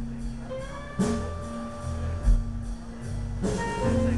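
Live blues band playing: electric guitar notes, some bent upward in pitch, over a steady bass guitar line with drum hits.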